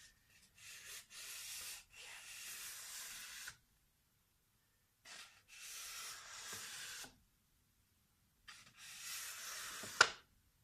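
Paper being rubbed close to the microphone in three long rubbing strokes. The last stroke ends in a sharp click near the end.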